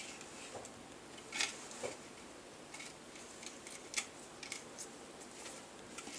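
A few light clicks and taps from hands handling and picking at the edge of a freshly moulded fibreglass propeller duct. The sharpest click comes about four seconds in.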